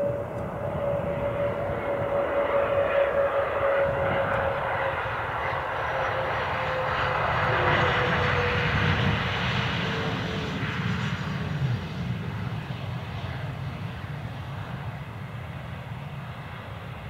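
Bombardier CRJ regional jet landing, its rear-mounted turbofan engines giving a steady whine that slowly falls in pitch. The jet roar grows to its loudest about eight to ten seconds in as the aircraft rolls past on the runway, then fades.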